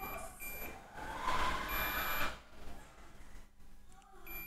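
Digital multimeter in diode-test mode giving short high-pitched beeps as the probes touch capacitor pads on a circuit board: three beeps about a second and a half apart, plus the tail of one at the very start.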